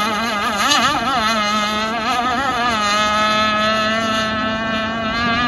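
Two-stroke gas engine of an RC hydroplane running flat out across the water. Its note wavers through a turn, then holds a steadier pitch about three seconds in as the boat runs away.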